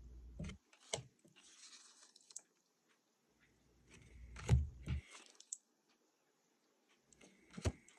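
Thick-cardstock tarot cards being handled and set down: scattered soft taps and a brief papery slide, with louder taps about four and a half seconds in and again near the end.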